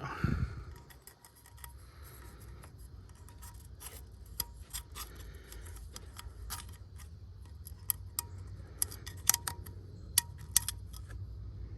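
Scattered small clicks and light scraping of hands and a tool on the oil filter housing lid as the old rubber gasket is pried off, over a steady low background hum. The clicks come thicker in the second half.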